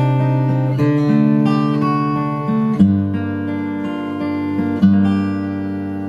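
Acoustic guitar chords struck slowly and left to ring, a new chord about every two seconds, the last one fading away: the instrumental close of the song.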